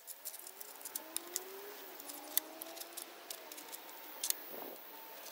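Galvanized steel telescoping tent pole being worked by hand, the inner tube sliding in the outer with a thin scraping squeal that rises and falls in pitch, and a few sharp metal clicks.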